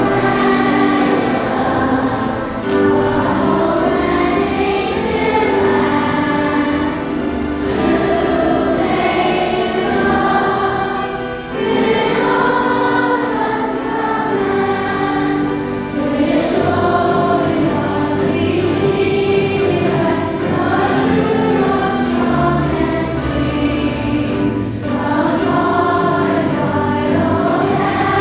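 A choir singing a song with instrumental accompaniment, voices moving over held notes and a low bass line.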